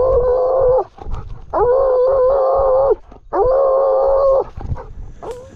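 Blood-trailing dog baying at a buck it has brought to bay, heard close up from a camera on its back. Long drawn-out bays of about a second each, three in a row with short gaps, then a short one near the end.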